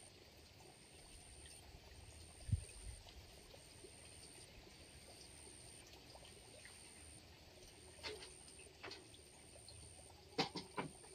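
Faint water trickling into a pond over a high pulsing tone, with a dull thump a couple of seconds in and a few sharp knocks near the end.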